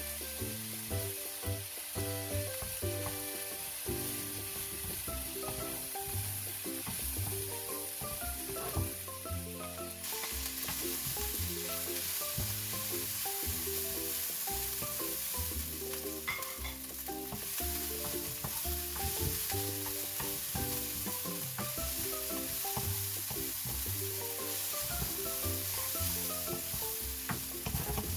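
Kimchi fried rice sizzling in a nonstick frying pan as it is stirred and turned over with a wooden spatula, over background music.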